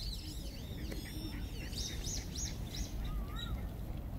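Small birds chirping in quick high notes that rise and fall, several a second, over a steady low rumble.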